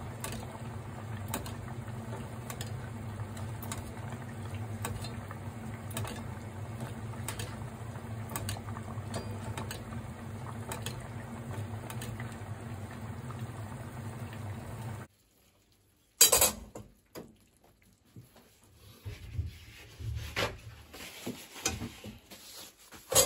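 A pot of sea bream head simmering in soy broth, bubbling steadily over a low hum, with light clinks of a metal ladle against the pot about once a second as broth is spooned over the fish. The sound cuts off about two-thirds through, followed by one sharp knock and scattered knocks and rubs.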